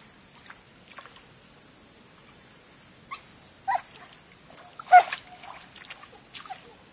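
Short animal calls: thin high whistling notes, then a sharp, loud call about five seconds in, among scattered light clicks.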